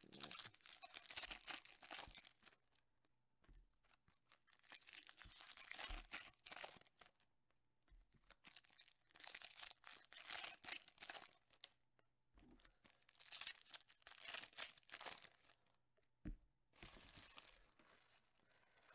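Foil wrapper of a Topps Chrome Mini trading-card pack being torn open and crinkled by hand. The sound comes in several separate rustling stretches, with a sharp click near the end.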